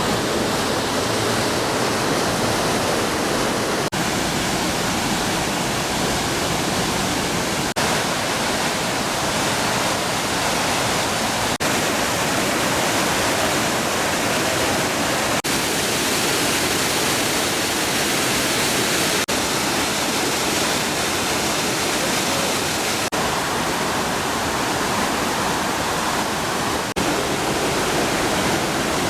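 Waterfall rushing: a steady roar of falling water.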